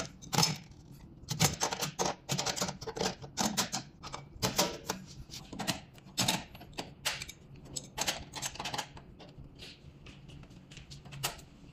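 Irregular clicks and clinks of a wrench working bolts on a stainless steel conveyor frame, loosening screws to adjust its position. The clicks are thinner near the end.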